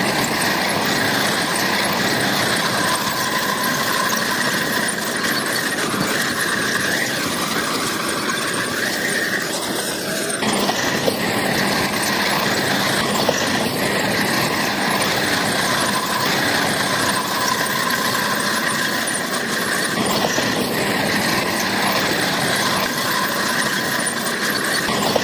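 Crawler bulldozer at work: its diesel engine runs steadily under a continuous high squeal from the tracks.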